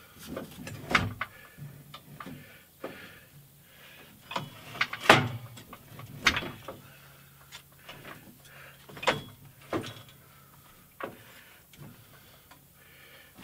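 Metal knocks, clicks and rattles from a steel Harbor Freight drywall lift being handled and set up, with an irregular string of knocks; the loudest is about five seconds in.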